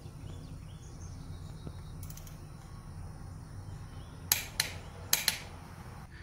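A torque wrench ratcheting on a cylinder head bolt gives four sharp clicks in quick succession a little past four seconds in, over a low steady hum.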